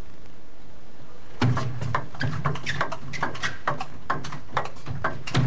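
A table tennis rally: the ball clicking back and forth off bats and table, a quick even series of sharp knocks about five a second, starting about a second and a half in.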